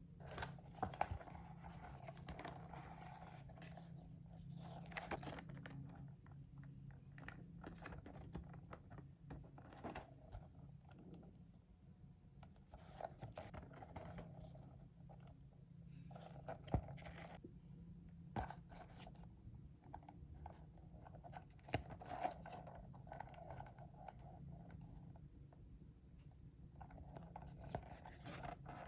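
Paper and plastic packaging being handled: rustling and crinkling with scattered sharp taps and clicks, some louder crackles about a second in and near 17 and 22 seconds.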